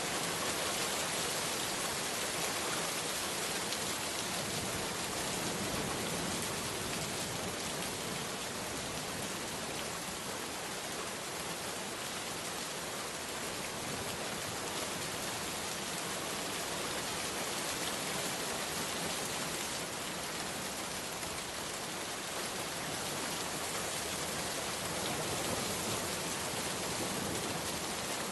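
Steady rainfall: an even hiss of rain falling on a surface, with no single drops or thunder standing out.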